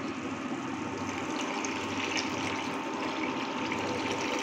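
Water pouring in a steady stream into a frying pan of cooking masala gravy, growing stronger about a second in.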